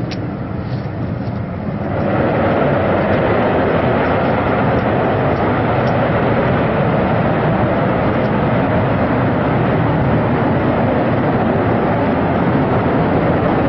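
Engine noise of a twin-engine J-20 stealth fighter on the runway, a loud steady rushing roar that grows louder about two seconds in.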